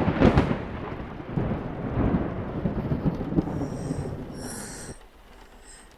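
Thunder: a sharp, loud clap that rolls on into a rumble and fades out about five seconds in.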